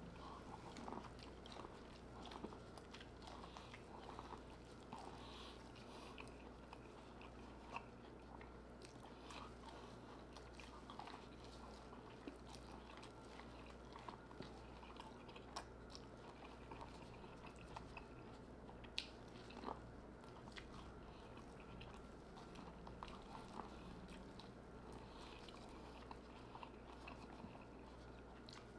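Faint close-miked chewing and biting of corn on the cob, with soft scattered crunches and wet mouth clicks.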